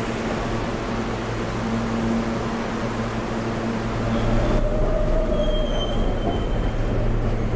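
Subway station noise from a New York City subway train standing at the platform: a steady mechanical hum and rumble. About halfway through the sound shifts, and a faint high squeal comes in briefly.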